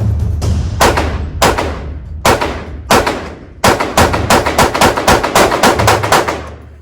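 Gunshots at a shooting range, each with a ringing tail. Four single shots come about half a second apart, then a rapid string of about a dozen shots, four or five a second, runs from about halfway through until near the end.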